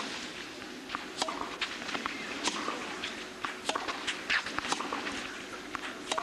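Tennis ball struck by racquets and bouncing during a rally: sharp, irregular knocks every half second to a second, over a low crowd murmur.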